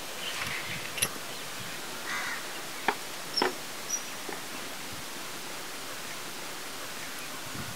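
Outdoor ambience: a steady hiss with a few short, sharp sounds in the first four seconds.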